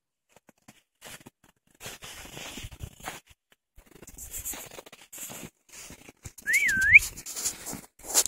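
Footsteps crunching through deep snow. About six and a half seconds in, a short whistle rises, dips and rises again, calling the dog.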